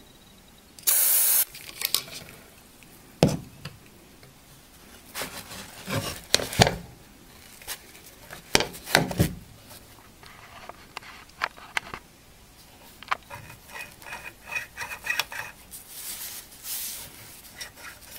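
Hands working a control inside an old rack-mount power supply: a short aerosol hiss about a second in, then rubbing, knocks and clicks as the parts and the front-panel knob are worked.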